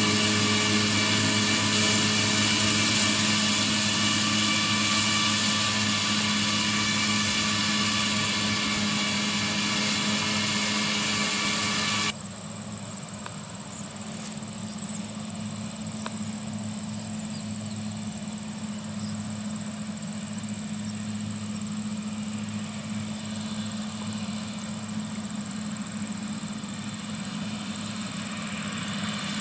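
Tractor engine and SIP disc mowers running together: a steady drone with many high whining tones over a low hum. About twelve seconds in, the high whine cuts off suddenly, leaving the lower hum and a thin high whistle.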